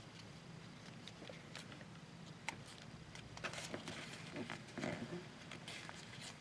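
Paper being handled and folded: scattered soft crinkles and taps, busier in the second half.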